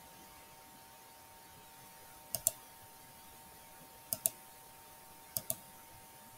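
Computer mouse button clicked three times, each click a quick pair of ticks as the button is pressed and released, over a faint steady hum.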